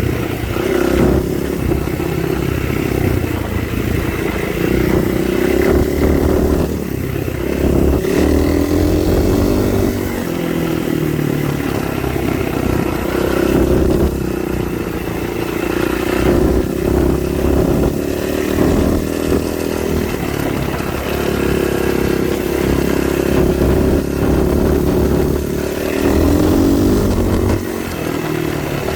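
A vehicle's engine running continuously under way, its pitch rising and falling with the throttle.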